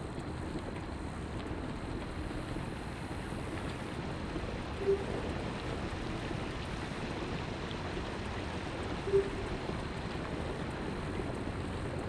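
Steady wind rush and low rumble on the microphone, broken twice by a short beep about four seconds apart.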